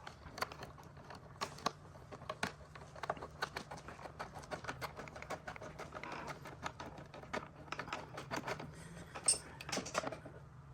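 Light, irregular clicks and rattles of small metal parts and hand tools being handled while caster wheels are threaded onto a mechanic's creeper, over a faint steady hum.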